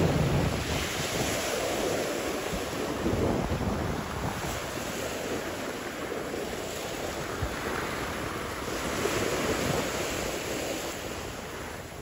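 Small waves washing up onto a pebble-and-sand shore. The surf swells and fades every few seconds, with wind rumbling on the microphone, strongest at the start.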